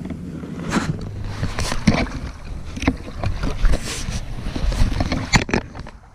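Creek water splashing and sloshing right at the microphone in a series of irregular slaps, over a low wind rumble.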